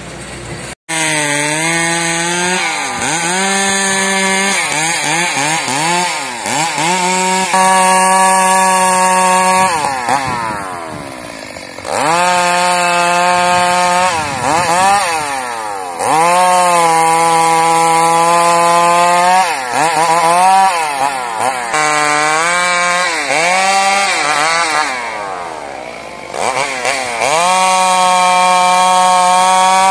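Two-stroke chainsaw at high revs cutting logs, its pitch sagging as the chain bites and climbing again as it frees, over several cuts with brief drops in revs between them. It cuts in suddenly about a second in.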